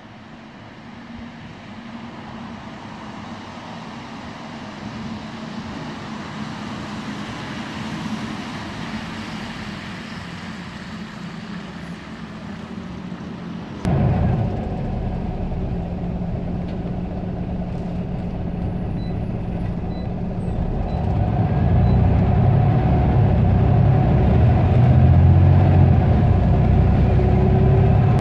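Tyre hiss of an approaching vehicle on a wet road, growing slowly louder; about halfway through it cuts abruptly to inside a Scania OmniCity single-deck bus, its diesel engine running with a steady drone. From about two-thirds of the way through, the engine grows louder as the bus pulls away and gathers speed.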